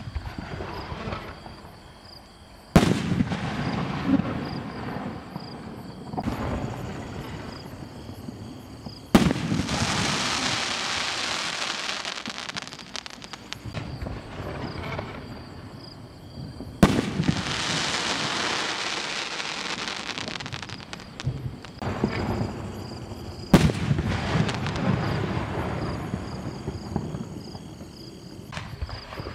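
2.5-inch aerial firework shells with rising tails going off one after another: four loud bursts roughly seven seconds apart, each followed by several seconds of crackle that slowly dies away.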